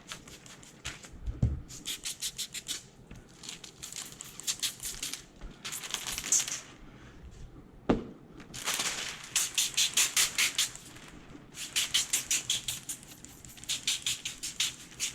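Trigger spray bottle squirted rapidly over and over in runs of a few seconds, wetting the glass for window tint film. One sharp knock about eight seconds in.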